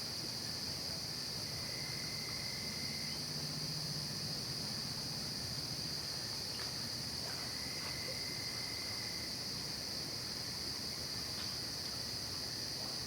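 Night chorus of crickets and other insects: a steady, high, shrill trill that never pauses. A fainter, lower trill sounds twice for a second or so.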